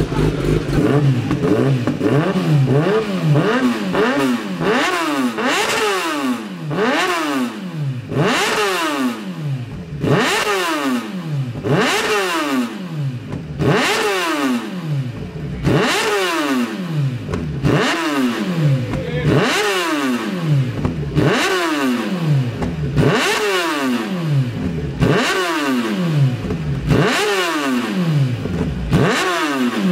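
Superbike engine revved repeatedly while standing, a quick throttle blip about once a second, each jumping up in pitch and falling away.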